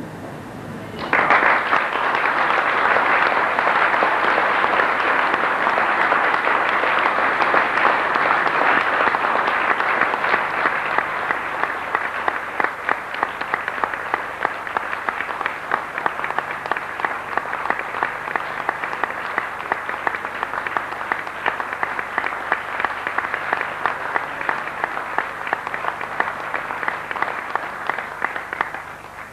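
Audience applauding, starting about a second in and thinning out slowly toward the end, with separate claps standing out in its later part.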